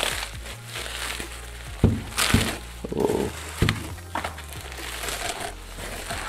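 Woven plastic sack rustling and crinkling as it is pulled and worked off a wooden packing crate, with a few sharp knocks in between.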